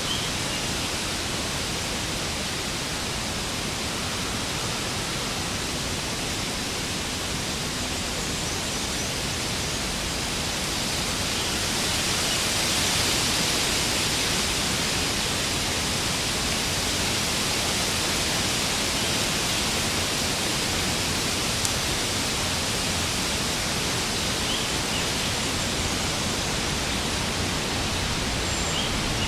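Warm wind ambience: a steady rush of wind, swelling a little in the middle, with a few faint high chirps.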